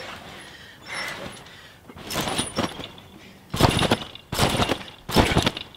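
A trampoline being bounced on repeatedly. It starts quiet and builds from about two seconds in to a loud thump roughly every 0.8 s as the jumper gains height.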